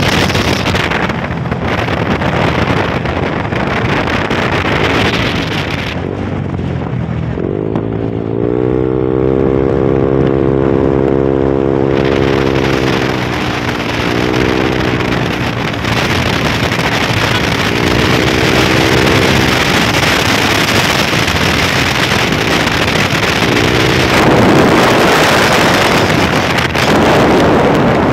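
Sport motorcycle ridden at speed, heavy wind rushing over the microphone. The engine note comes through about a quarter of the way in, rising as the bike accelerates, then holding steady, and returns briefly a few more times under the wind.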